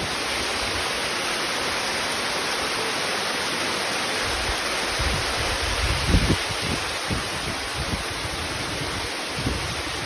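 Steady rush of falling water from a 70-metre waterfall, a dense even hiss with no break, with low buffeting on the microphone about halfway through.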